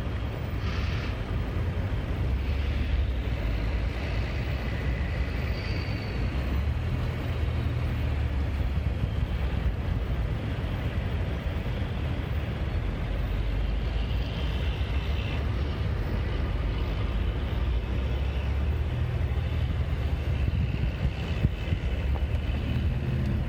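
Steady low rumble of a car driving on a freeway, heard from inside the cabin: tyre and engine noise.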